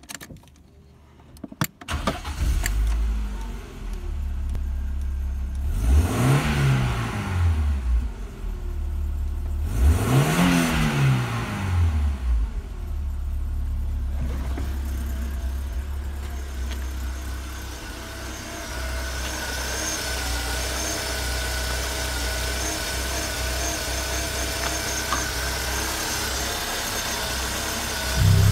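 BMW E36's M43B18 1.8-litre four-cylinder petrol engine starting about two seconds in. It is revved twice briefly, each time rising and falling back, then runs at a steady idle. There is a thump near the end.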